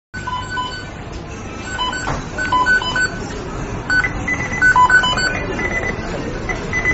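The McDonald's kitchen beeping sound effect: many short electronic beeps at several different pitches, overlapping and repeating in short runs, over a steady kitchen background noise. It starts abruptly out of silence.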